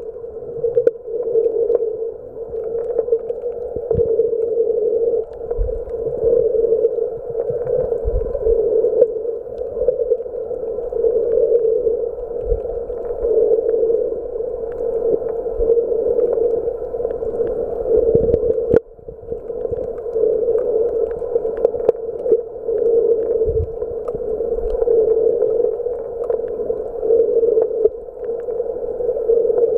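Muffled underwater noise picked up by a camera submerged in its waterproof housing: a steady dull hum with occasional soft low knocks from handling.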